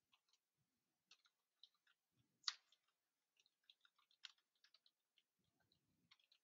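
Faint computer keyboard typing: scattered soft key clicks, with a sharper click about two and a half seconds in.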